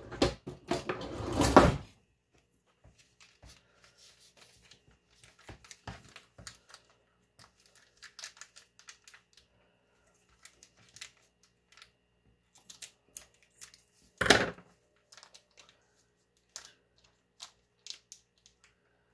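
Plastic zip-top bag full of icing crinkling as it is handled, with the clicks of kitchen scissors opening and snipping off one corner. A loud rustle in the first two seconds and a single louder knock about fourteen seconds in.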